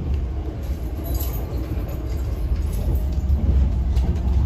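Electric commuter train running at speed, heard from inside the passenger carriage: a steady low rumble of wheels on rails.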